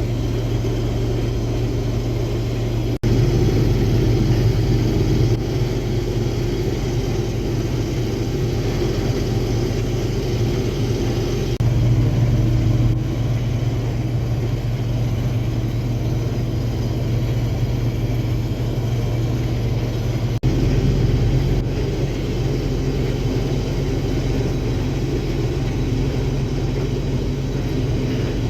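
Case IH Axial-Flow combine running steadily while harvesting soybeans: a continuous low engine and machinery drone. Two sudden short breaks, about three seconds in and again about twenty seconds in, each followed by a slightly louder stretch.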